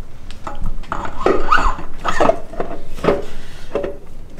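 Irregular metal clanks, knocks and scrapes, with a few short squeaks, as the torque converter and Turbo 400 automatic transmission are worked by hand into place against the engine.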